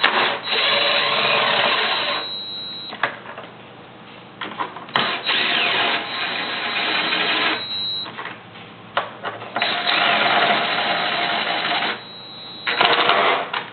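Power drill driving screws in, in four runs of one to three seconds each with a steady motor whine, with short pauses and clicks between runs.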